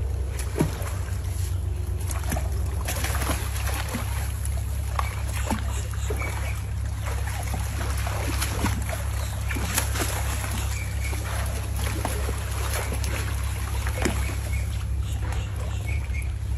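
Alligators splashing and sloshing in a shallow pool, with many short sharp splashes and knocks over a steady low rumble.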